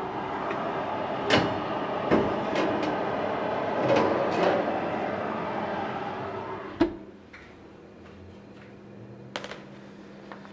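A steady machine hum with several clicks and knocks, stopping at a sharp click about seven seconds in; fainter clicks follow near the end.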